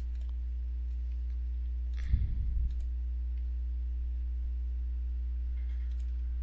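Steady low electrical hum, broken about two seconds in by a short clatter of clicks with a low thump.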